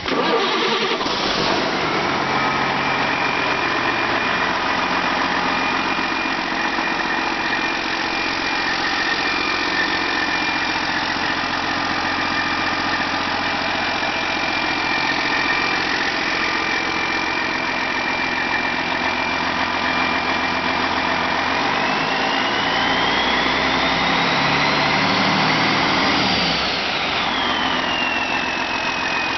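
Detroit Diesel DDEC IV 430 hp truck diesel engine starting up, then idling steadily with a high whine over it. A little past twenty seconds in it is revved up, the whine rising for several seconds, then drops back to idle.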